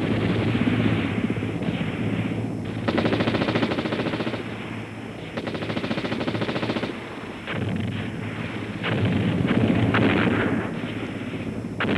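Bursts of automatic machine-gun fire, rapid shots in runs of one to two seconds, repeated several times over a steady low rumble.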